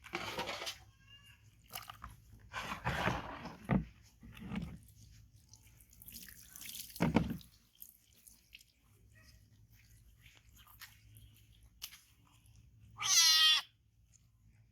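A kitten meows once, loud and brief, near the end. Before that come scattered short rustling and scuffling noises.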